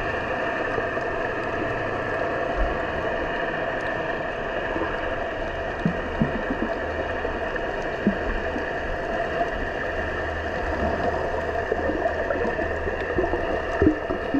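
Steady underwater ambience recorded on the seabed: a constant hum and hiss with a few short, low pops scattered through it.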